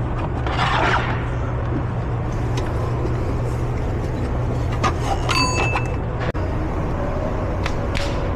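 Hand-tool work in a truck's engine bay: a brief rustle, then several sharp metal clicks around five seconds in, one ringing briefly like a struck metal part, over a steady low shop hum.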